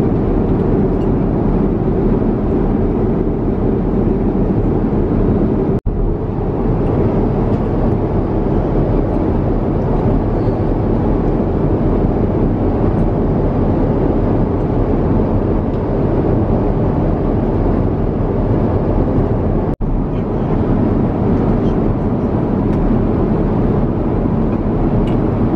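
Steady drone of an airliner cruising, heard inside the passenger cabin: jet engines and rushing air, a loud, even rumble with most of its weight in the low range. It cuts out for an instant twice, about six and twenty seconds in.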